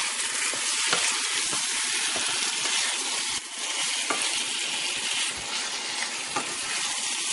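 Cubed raw chicken thighs sizzling in hot oil and curry paste in a pan, turned over with a wooden spoon: a steady frying hiss with occasional light scrapes and taps of the spoon.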